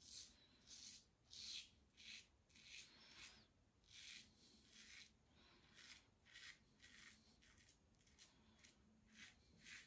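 King C Gillette double-edge safety razor with a BIC Astor blade scraping through beard stubble against the grain, in short quick strokes of about two a second, each a faint crisp rasp.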